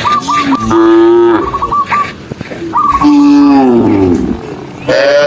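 Cattle mooing: three long moos, the last beginning near the end, with a rapid run of short high chirps early on.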